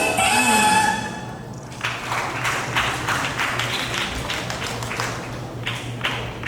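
Music stops about a second in, and about a second later an audience starts applauding, with dense clapping that lasts to near the end.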